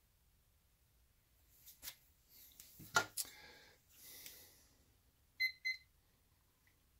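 A few handling knocks and clicks, the sharpest about three seconds in. Then two short high beeps from a digital kitchen timer as its buttons are pressed to set it.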